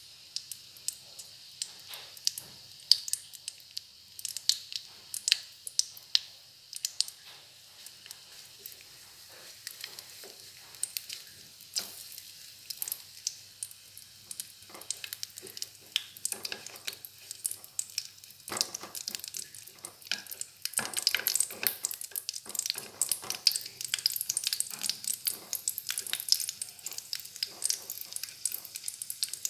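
Pork cracklings and lard sizzling and popping in a steel frying pan as the fat melts. Sharp crackles sound throughout, and the sizzle grows denser and louder over the last third.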